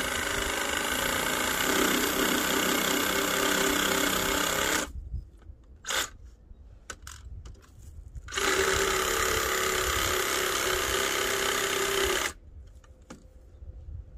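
Handheld power tool run in two bursts of about four seconds each, with a pause of about three and a half seconds between them. Each burst is a steady, even buzz that starts and stops abruptly.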